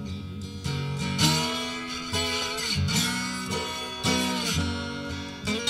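Music: guitar chords struck several times and left to ring in an instrumental passage of a slow rock ballad, with no singing.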